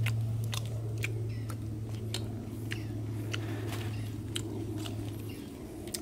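Crisp cracks and crackles, about two a second, as hands break apart a fire-charred fish, snapping its burnt skin and flesh, over a steady low hum.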